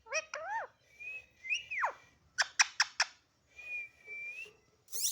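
Pet talking parrot whistling and calling. It gives short rising calls, then a held whistle that ends in a quick downward glide, a quick run of clicks, a second held whistle and a fast rising sweep near the end.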